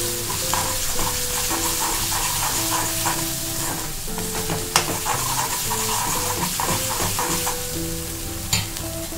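Spatula stirring and scraping thick ginger paste around a metal kadai as it fries in sesame oil, with a steady sizzle and small irregular scrapes and clicks. The paste is cooking down and thickening until the oil separates.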